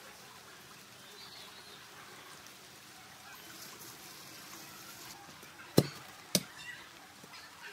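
Faint steady outdoor background, broken by two sharp clicks about half a second apart a little before the end.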